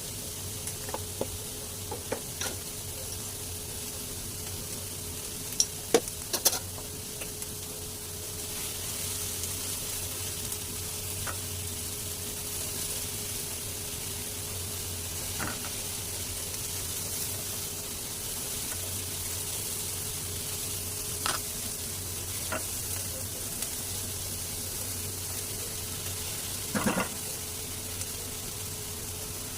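Scrambled eggs and onion frying in a pan, sizzling steadily while they are stirred, with occasional short clicks and knocks of the utensil against the pan. A steady low hum runs underneath.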